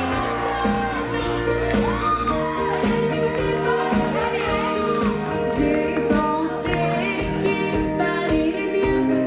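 Live pop-rock band playing, with electric guitars, drums and several voices singing together over a steady beat.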